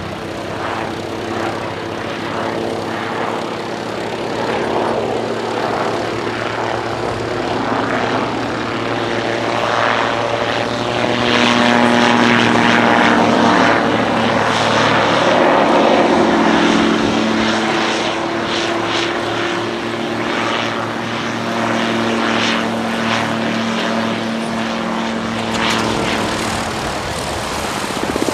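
Calidus autogyro's small piston engine and pusher propeller droning through a display flight. The pitch shifts as it manoeuvres, and it grows louder towards the middle and fades somewhat after.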